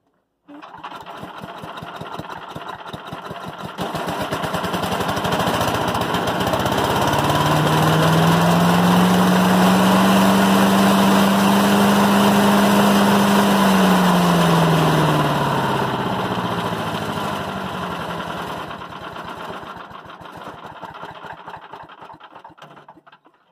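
Craftsman 9 HP chipper-shredder's single-cylinder engine starts about half a second in and runs, then speeds up: its steady hum climbs in pitch, holds at full speed for several seconds, and drops back before dying away near the end. This is a test run after the impeller repair, with the machine running as it did when new.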